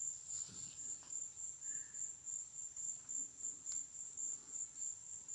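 An insect trilling steadily at a high pitch, cricket-like, with a slight regular pulsing.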